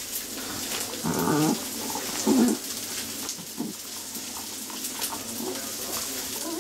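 Poodle making short, pitched vocal noises, three main ones with the loudest about a second in, while waiting for a ball to be thrown in a game of fetch.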